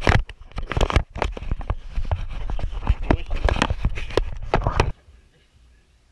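Knocks, clatter and low rumbling from a camera being carried and bumped about on a boat deck. The noise stops abruptly about five seconds in.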